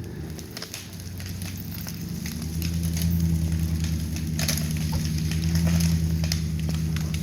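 Ford F-150's 5.0-litre V8 working under load as the truck drags an uprooted tree, the engine swelling louder over the first few seconds and then holding steady. Scattered crackles and snaps run over it.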